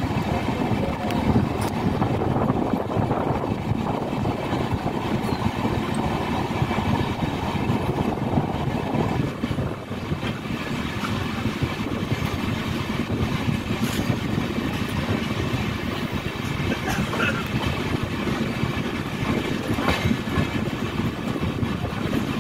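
Indian Railways express passenger train running at speed, heard from beside its coaches: a steady rumble of wheels on the rails, with a few sharp clicks as the wheels cross rail joints and points.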